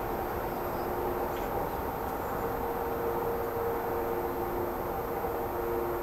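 Steady distant rumble with a low engine-like drone whose tones shift slightly over a few seconds, and one or two faint high bird chirps about a second and a half in.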